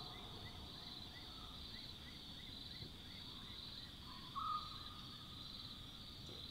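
Night bush ambience: a steady, high-pitched insect chorus, with faint short chirps repeating about twice a second in the first half. About four seconds in comes a brief, louder single-pitched call.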